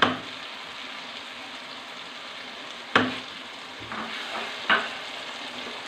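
Egg masala curry sizzling in a nonstick kadai as yogurt is stirred through it with a wooden spatula, a steady hiss broken by three sharp knocks of the spatula against the pan, at the start, about three seconds in and near the end.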